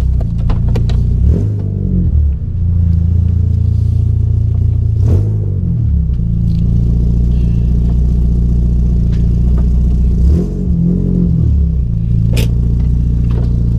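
Peugeot 106 S16's 1.6-litre sixteen-valve four-cylinder engine running at low speed during a parking manoeuvre, heard from inside the cabin, with three brief rises and falls in engine speed as the car is eased back and forth. A sharp click sounds near the end.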